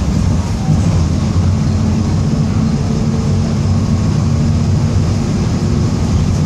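Mercedes-Benz OF-1722M bus under way, its diesel engine running steadily with the growl of a worn, noisy differential beneath it.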